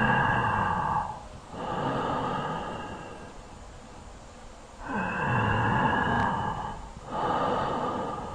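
Laryngotracheal (tracheal) breath sound on auscultation: two breaths, each a loud blowing noise in and then out with a short gap between the two phases. There is a longer pause between the breaths, with the second breath starting about five seconds in.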